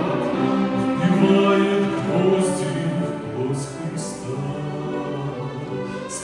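String chamber orchestra playing a slow song in sustained, legato chords.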